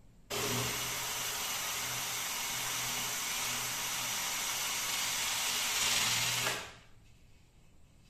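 Cordless drill running a small sanding disc against the end face of a segmented wooden vase: a steady whir with sanding hiss that starts suddenly and stops sharply about six seconds later.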